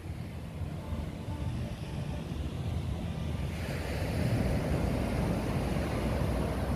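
Sea surf washing onto the beach, with wind buffeting the microphone. The surf swells louder about three and a half seconds in.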